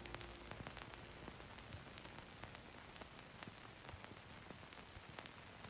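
Near silence: a faint steady hiss with many small crackling clicks, like static.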